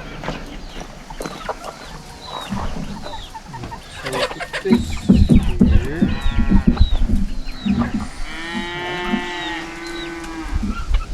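Chickens clucking and squawking, with loud low knocks around the middle and a long, drawn-out call in the second half.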